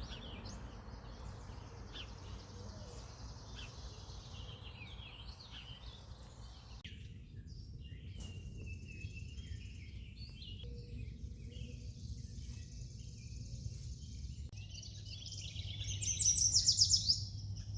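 Songbirds singing and chirping, several overlapping calls and trills, with one loud rapid trilling song near the end. A steady low rumble runs underneath.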